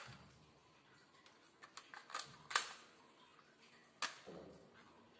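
Sharp clicks and snaps of an airsoft pistol being handled as its magazine is loaded into it. A few small clicks come first, the loudest snap about two and a half seconds in and another about four seconds in.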